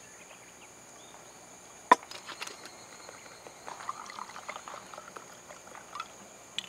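Wine poured from a glass bottle into a stainless steel cup, gurgling for a few seconds from about halfway through, after a single sharp click about two seconds in. Insects trill steadily behind.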